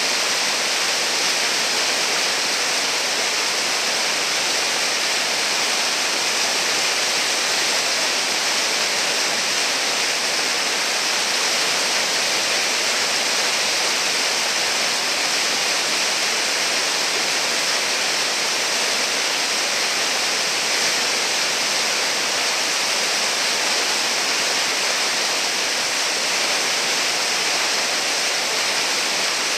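Steady rush of whitewater pouring over a low river ledge and churning in the hole below, an even hiss with no breaks.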